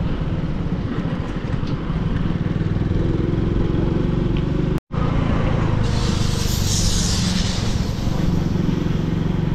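Motorcycle engine running steadily while riding along the road. The sound cuts out for an instant about five seconds in, and a hiss swells for a second or so around six seconds in.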